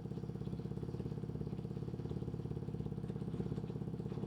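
Boom Vader 125 mini bike's single-cylinder four-stroke engine idling steadily with an even pulse, shortly after start-up. It is being run to check for exhaust leaks at a freshly sealed EGR block-off plate, and no gas is felt blowing out.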